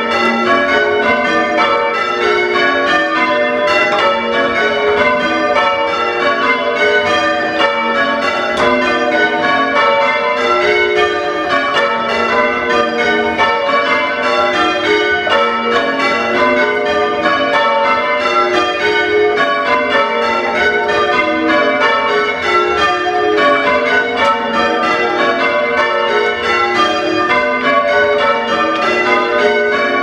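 A ring of six church bells, tenor in A, rung full-circle in change ringing, with a continuous stream of strikes heard from the ringing chamber below. They are a mixed set of bells last tuned in 1924, and they sound harsh and fairly untuneful.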